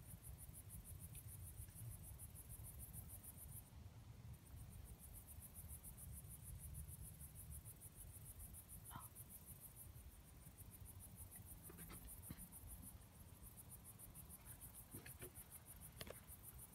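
Crickets chirping faintly in a steady, rapid, high-pitched pulse, with a brief pause about four seconds in.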